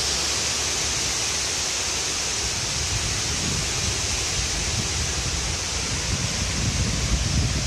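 Strong wind blowing through trees, a steady rushing hiss of leaves and branches, with low rumbling gusts that build near the end.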